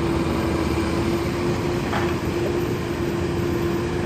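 Steady machinery drone with one constant hum and a low rumble, from the forklift, the idling catch trucks and the chicken-house fans running at a chicken catch.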